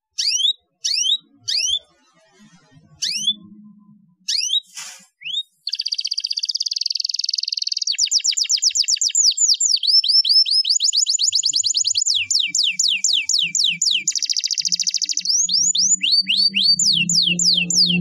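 Canary singing: first a run of single quick rising chirps, about two a second with short breaks, then from about six seconds in a continuous fast song of rapid repeated whistled sweeps and buzzy rolling trills.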